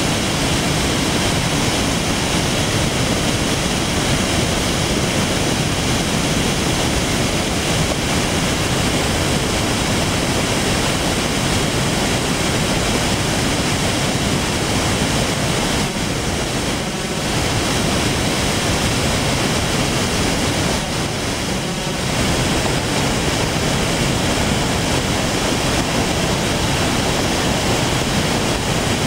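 Flash-flood water pouring over a dam spillway and crashing into churning whitewater below: a loud, steady rush of water. It dips a little twice, about two-thirds of the way through.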